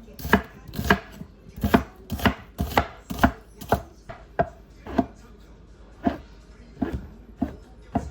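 Kitchen knife chopping on a cutting board, sharp single strokes at about two a second, slightly uneven.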